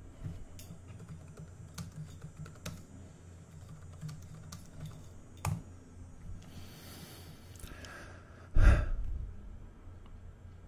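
Typing and clicking on a computer keyboard in scattered short bursts, over a faint low hum. About eight and a half seconds in there is one much louder thump.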